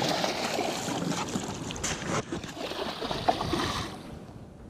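Water splashing and churning as a hooked catfish thrashes at the surface beside the boat, with a sharp knock about two seconds in; the splashing dies down near the end.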